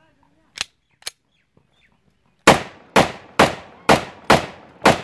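.30 bore (7.62×25 mm Tokarev) steel pistol fired in single shots: two short clicks early on, then from about halfway in six sharp cracks in quick succession, about two a second.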